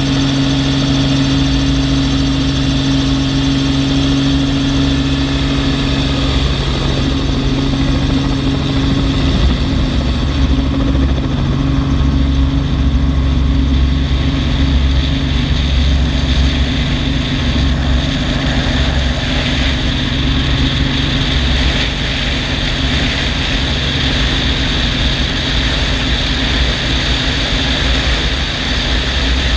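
Helicopter engine and rotor running loud and steady through take-off and climb, heard from a camera mounted outside the aircraft. Under the drone is a pulsing low rotor beat. The engine note shifts about a quarter of the way in as it lifts off, and rushing air grows after that.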